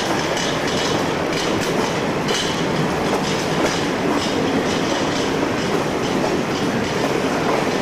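A train of Indian Railways passenger coaches rolls past close by, with a steady rumble and the wheels clattering again and again over the rail joints.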